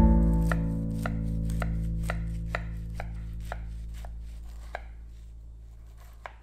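A knife cutting through the crisp, flaky crust of a baked lattice-top apple pie, the pastry crunching in sharp cracks about twice a second that thin out toward the end. A held music chord fades away underneath.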